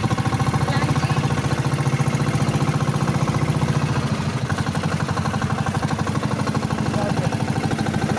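Outrigger boat's (bangka) inboard engine running steadily under way, with a fast, even pulse.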